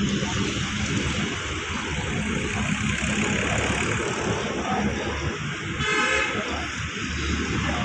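Tractor diesel engine running steadily with a low rumble. A brief horn toot sounds about six seconds in.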